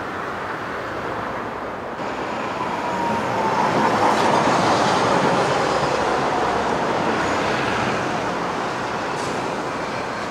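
Hiroshima Electric Railway streetcar running past on street track amid steady road traffic. It grows to its loudest about four seconds in and then fades, with a faint thin squeal near its loudest.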